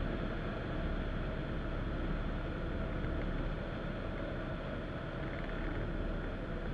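Steady, muffled rush of wind over the microphone of a camera mounted on a hang glider's wing in flight.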